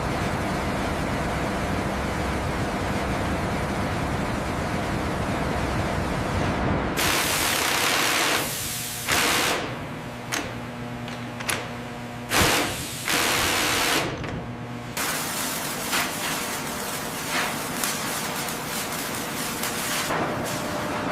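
Steady industrial machinery noise, a hiss over a low hum. About seven seconds in it starts changing abruptly from moment to moment, with steady tones and short sharp knocks.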